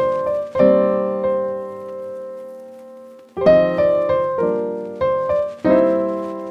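Piano music: chords struck in short groups, each left to ring and fade, with one chord held and dying away for about two seconds in the middle before the playing resumes.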